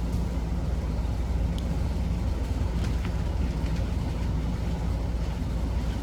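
A steady low rumble and hum, like a motor or engine running, with a couple of faint, short high ticks.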